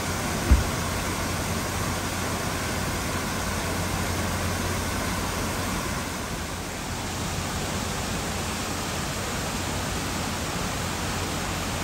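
Water pouring steadily down a curved stepped weir, a constant rushing, with one short low thump about half a second in.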